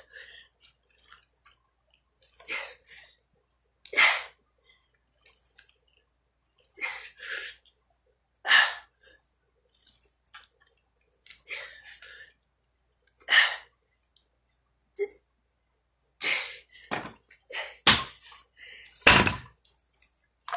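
A man's sharp, forceful exhalations, one with each heavy dumbbell curl, coming every one to three seconds.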